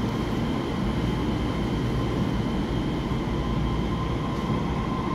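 EMU3000 electric multiple unit pulling out of the platform and moving away: a steady rumble of wheels on rails, with faint steady high tones above it.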